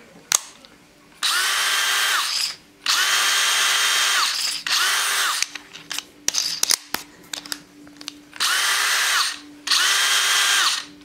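DeWalt DCD777 brushless cordless drill in second (high) speed, run free in five short trigger pulls of one to two seconds each. Each pull whines up to speed, and after release the pitch slides down as the chuck coasts to a stop, because this drill has no electric brake. Small handling clicks come between runs.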